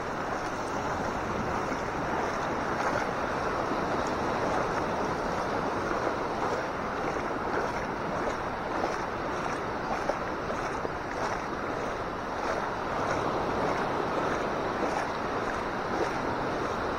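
Steady rush of small waves breaking and washing in over a shallow sandy beach, with water moving right at the waterline.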